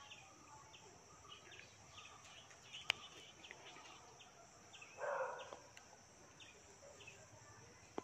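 Faint outdoor insect and bird ambience: a steady high insect drone with short chirps repeating about twice a second. There is a single sharp click about three seconds in and a brief low rustling noise about five seconds in.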